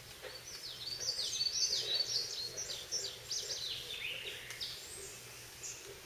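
A songbird singing a long, rapid run of quick, sliding high notes for about four and a half seconds, loudest a second or two in.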